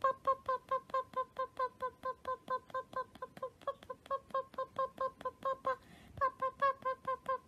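A fast, even series of short squeaks, about four a second, each dipping slightly in pitch, with a brief break about six seconds in.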